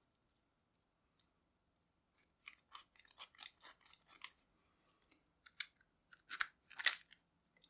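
A quiet, irregular run of small clicks and snips as padlock keys are worked off their holder, starting about two seconds in, with two louder snaps near the end.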